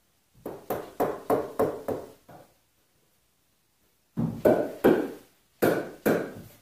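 A mallet striking the logs of a log-bed footboard, seating the glued spindles and corner post: a quick run of about seven blows, a pause of about two seconds, then five or so heavier blows near the end.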